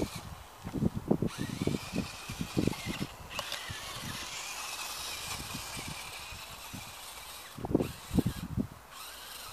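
Small electric drive motor and gearbox of a 1:18 scale RC rock crawler whining, its pitch wavering up and down as the throttle changes while it crawls through loose sand. Irregular low thumps come in bunches near the start and again near the end.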